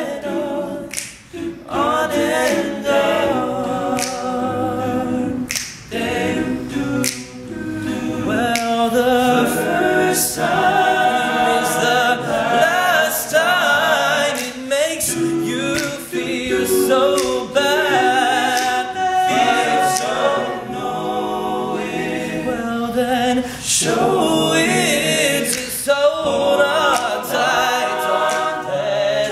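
All-male a cappella group singing in close harmony: a lead voice over sustained backing vocals, with short sharp percussive clicks scattered through the song.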